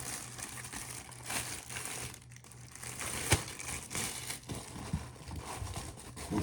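Thin plastic sleeve crinkling and rustling as a display base is slid back into it, with scattered clicks and one sharp click about halfway through.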